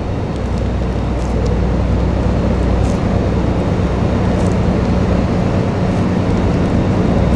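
Steady low hum and rumble of background noise, with no distinct events.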